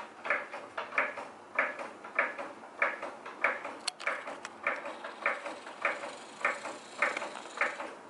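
Hydraulic floor jack being pumped by its long handle: a steady rhythm of short strokes, a little under two a second, with one sharp click about four seconds in.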